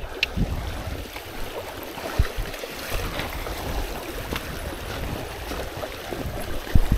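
River water flowing, with wind buffeting the microphone as a low rumble. Two dull thumps, about two seconds in and near the end.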